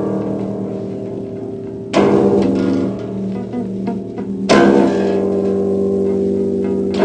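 Instrumental music intro: a sustained chord struck with a sharp attack about every two and a half seconds and left ringing between the hits.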